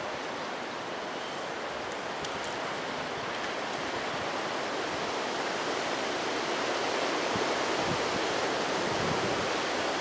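Strong windstorm wind rushing through bare treetops: a steady, even rush that grows gradually louder over the second half.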